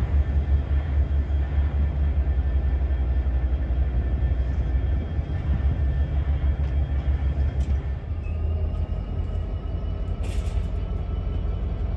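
Diesel freight locomotive engine idling: a steady, low throbbing rumble that eases a little about eight seconds in. A brief hiss sounds about ten seconds in.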